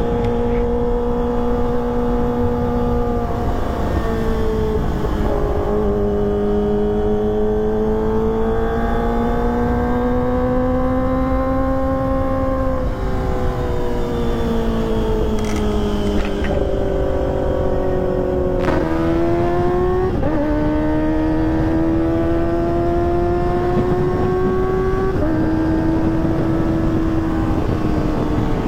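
Kawasaki ZX-25R's high-revving inline-four engine through a ProLiner TR2 full-system exhaust, ridden under power. The engine pitch climbs slowly, then drops or jumps in sudden steps several times as gears are changed, with a low rushing noise underneath.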